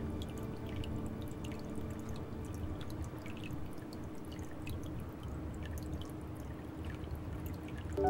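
Water trickling and dripping into a small garden pond tub, with scattered light drips. Soft held music tones fade out over the first couple of seconds.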